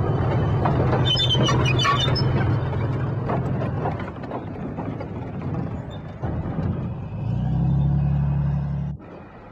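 Tank engine running with its steel tracks clanking and squealing as it rolls over a bridge ramp. The engine sound dips in the middle, swells again near the end and cuts off abruptly just before the end.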